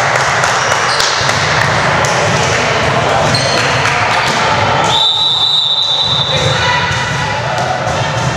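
Echoing gymnasium hubbub of voices and chatter, with balls thudding on the hardwood floor. A thin high tone holds for about three seconds past the middle.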